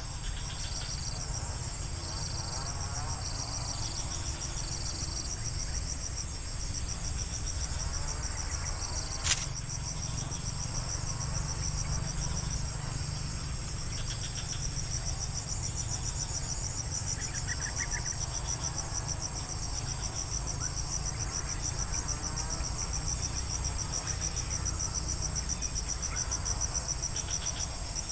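Steady, high-pitched chorus of insects with a fast even pulsing beneath it, and a single sharp click about nine seconds in.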